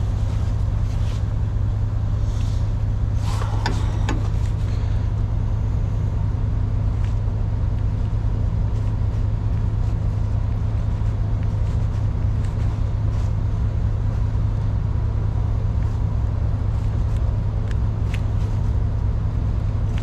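Truck engine idling steadily with a constant low hum, with a few light clicks of hand work on the hose about three to four seconds in.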